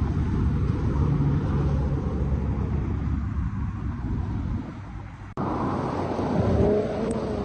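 Wind rushing over a phone's microphone with a low rumble of road traffic. It cuts out abruptly about five seconds in, then carries on.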